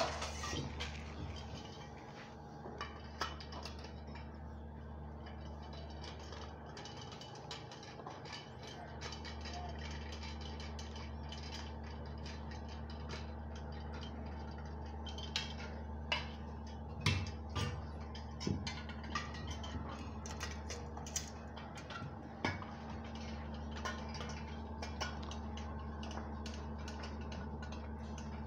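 Scattered light clicks and knocks of aluminium window sections being handled and fitted together into a sliding-window sash on a workbench, more frequent in the second half, over a steady low hum.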